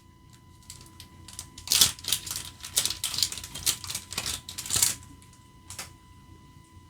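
Foil trading-card booster pack wrapper crinkling and tearing open, a dense run of sharp crackles for about three seconds, then one more near the end.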